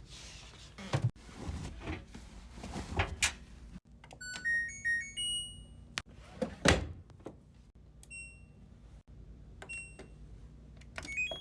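Washing machine being set up: a few thunks from its door or lid, then its control panel plays a short tune of electronic tones about four seconds in, followed by single beeps a couple of seconds apart as buttons are pressed.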